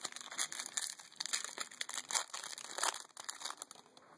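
Foil booster-pack wrappers crinkling as trading cards are handled, a rapid irregular string of crackles that dies away shortly before the end.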